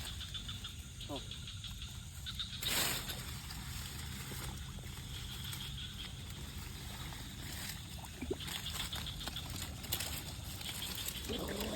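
Night insects chirping in fine pulsing trills under a steady low hum, with a brief rustle about three seconds in and a voice starting near the end.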